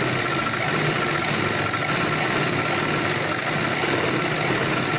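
Chauhan straight-stitch sewing machine running steadily as it stitches a folded hem in fabric, a continuous mechanical whirr with one faint steady tone.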